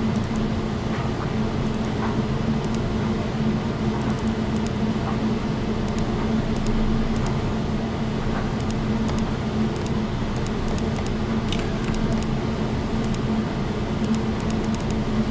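Steady low mechanical hum throughout, with faint scattered clicks over it.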